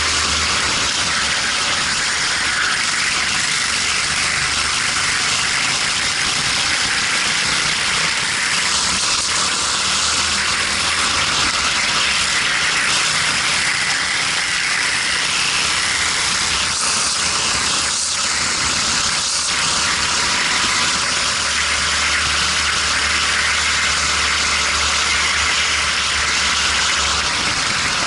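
Go-kart running at racing speed, its engine under a steady rush of wind over a helmet-mounted microphone.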